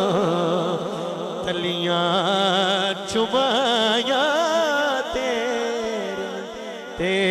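A man's solo voice singing a Punjabi naat through a microphone and PA, in long wavering, ornamented melodic lines.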